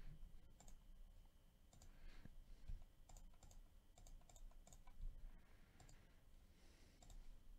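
Near silence broken by faint, scattered clicks of a computer mouse and keyboard.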